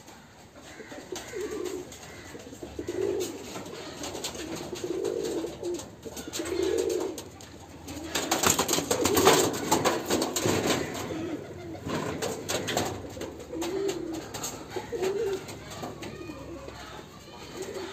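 Domestic pigeons cooing, low soft calls repeating every second or two, with a louder stretch of wing flapping and scuffling in the middle.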